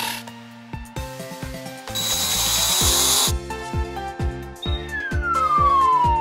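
Cartoon sound effects over background music with a steady beat: a burst of hissing about two seconds in, lasting just over a second, then a long falling whistle starting near the five-second mark.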